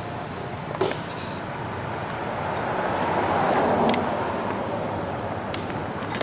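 Steady outdoor rushing noise that swells about halfway through and then eases off, with a few faint sharp clicks.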